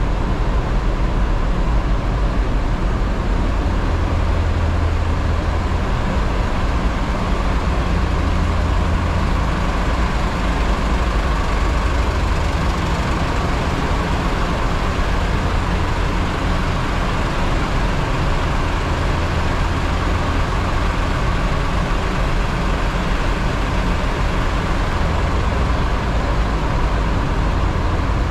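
Steady low rumble and hiss of a car ferry under way, its engine drone the strongest part and unchanging throughout.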